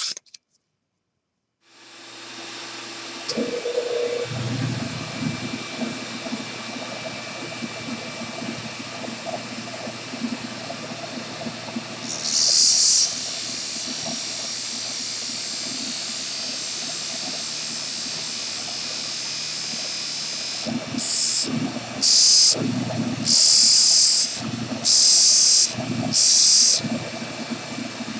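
Disc sander motor starting up and running steadily. The end of a wooden dowel is pressed to the sanding disc once near the middle and about five times in quick succession near the end, each a short loud hiss of wood being sanded to a taper.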